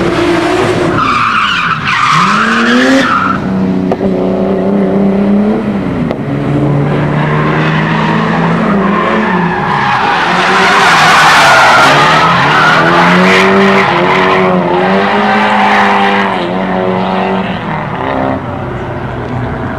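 Street drift cars at full throttle: engines revving hard, with the note climbing and dropping again and again, while the tyres squeal and skid as the cars slide past. The tyre noise swells loudest about halfway through, and it all fades toward the end.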